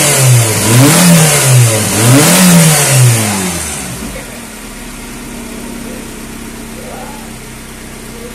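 Hyundai DOHC 16-valve four-cylinder engine on its first start-up, revved up and down a few times with the throttle. It then drops back to a steady idle about four seconds in.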